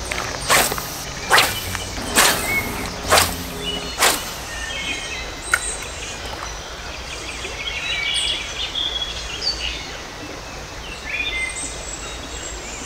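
Birds chirping and calling in short scattered phrases over steady outdoor background noise, after an acoustic guitar strums five times in the first four seconds.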